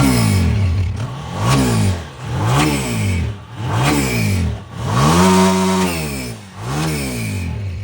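Honda 125 motorcycle's single-cylinder four-stroke engine revved in short throttle blips, about six of them with the pitch rising and dropping back each time, and one longer held rev about five seconds in.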